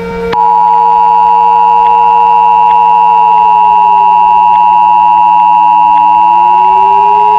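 Emergency Alert System two-tone attention signal, the 853 and 960 Hz tones sounding together, starting a moment in and holding steady and loud. Underneath, a lower tone slowly sinks in pitch and rises again, over a steady low hum.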